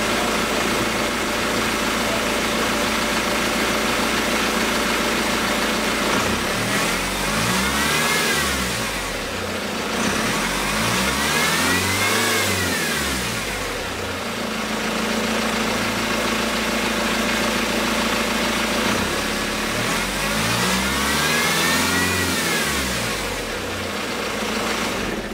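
BMW 3 Series E90 engine idling steadily, then revved up and back down three times, its pitch rising and falling with each rev, with a stretch of idle before the last. The owner hears a strange noise from it.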